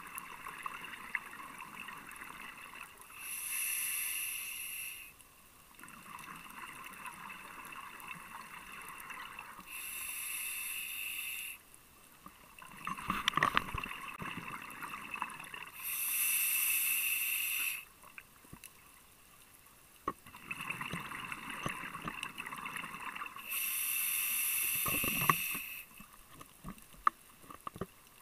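Scuba diver breathing through a regulator underwater in a slow, regular cycle: a soft hiss on each inhale, then a louder rush of exhaled bubbles, four times. A few sharp clicks are heard between breaths.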